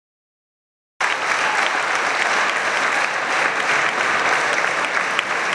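Audience applauding, a dense steady clapping that starts abruptly about a second in.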